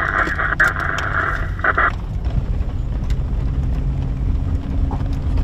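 Toyota pickup driving slowly on a dirt road, heard from inside the cab: a steady low engine and tyre rumble with scattered small clicks and rattles, and a steady low drone joining it after about three and a half seconds. A loud hiss, like an open radio channel, covers the first two seconds and then cuts off.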